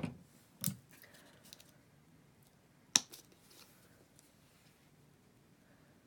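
Plastic paint bottles being handled on a table: a few sharp clicks and taps, one right at the start, another under a second in and the loudest about three seconds in, with soft rustling between.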